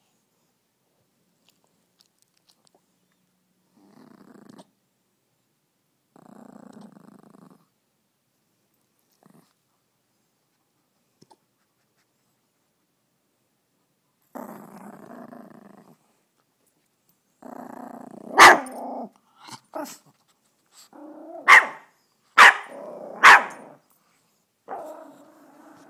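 Puppy growling in low rumbles of about a second each, the growls coming closer together in the second half, with five short, sharp barks between them near the end.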